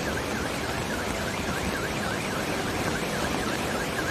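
Floodwater rushing through a street with a steady roar, and a car alarm warbling over it, about four falling-and-rising chirps a second.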